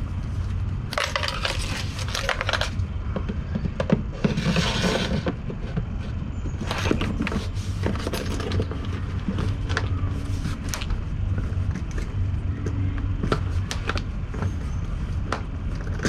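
Handling noises from fitting neoprene weather stripping along a door lip: scattered clicks and scrapes, with two short rasping hisses in the first few seconds, over a steady low hum.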